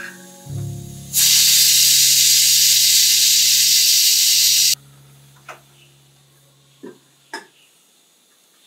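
Pressure cooker releasing steam: a loud, steady hiss of about three and a half seconds that starts and cuts off abruptly. It sounds over a sustained background music chord and is followed by a few light clicks.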